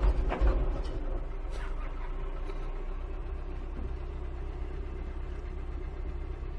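Loader tractor's engine running in a steady low rumble as the machine tips over a dirt mound, with a couple of sharp thumps in the first half-second.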